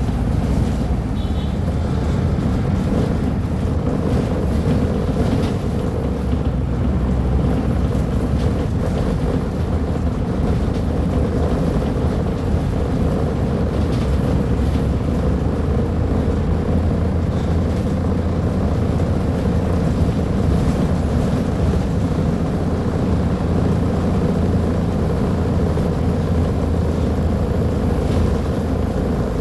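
Scania K310UB bus's nine-litre five-cylinder diesel engine running steadily, a continuous low drone with no change in pace.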